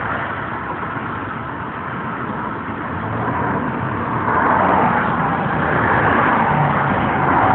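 Road traffic on the bridge deck: cars going by with a steady rush of tyre and engine noise that swells about four seconds in as a vehicle passes close.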